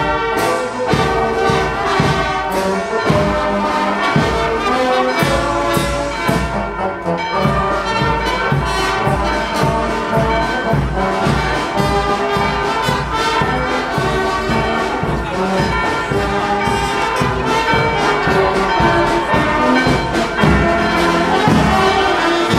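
Brass band playing a tune, trumpets and trombones over a steady low beat.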